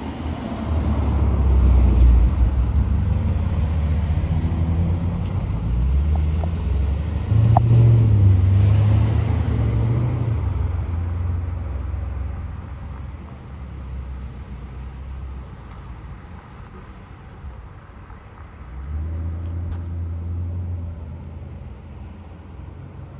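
Cars passing close by one after another at low speed over speed humps, engines and tyres rumbling. The sound is loudest about two and eight seconds in, dies away after about eleven seconds, and another car passes near the end.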